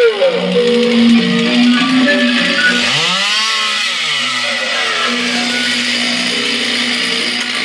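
Improvised music with a steady held low note, and a chainsaw revved up and let back down about three seconds in.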